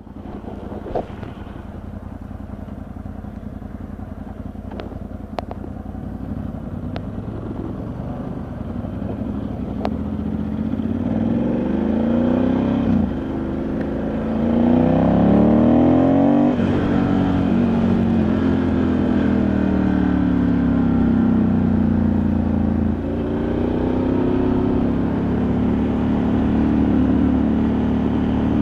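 Ducati Multistrada 1100S's air-cooled L-twin engine running low and steady, with a few sharp clicks. About ten seconds in it pulls away: the pitch rises and drops back at each upshift, three times, getting louder.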